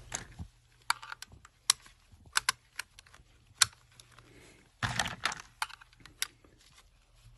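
Cartridges being pressed one at a time into the box magazine of a Browning BAR sporting rifle in .30-06: a run of sharp, irregular metallic clicks, with a denser clatter about five seconds in.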